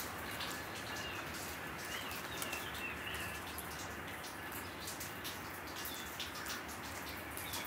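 Distant Norfolk Southern double-stack intermodal freight train rolling across a long bridge: a steady rumble of wheels on rail. Birds chirp about two and three seconds in and again near the end, over scattered light clicks.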